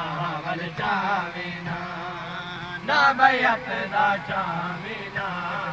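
Group of men chanting a Muharram lament (nauha) together, led by a voice into a hand-held microphone, over a steady low hum. A louder voice surges in about three seconds in.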